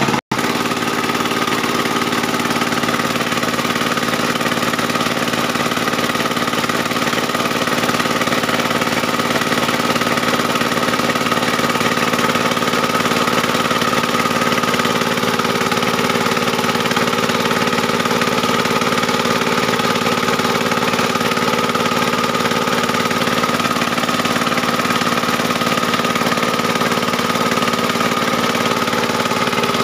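The engine of a portable circular sawmill (serkel keliling) running steadily with no log in the cut, with a constant whine.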